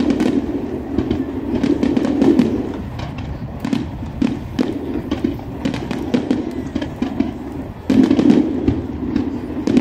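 Fireworks finale: aerial shells bursting in quick, overlapping succession, with dense crackling throughout and a louder barrage starting about eight seconds in.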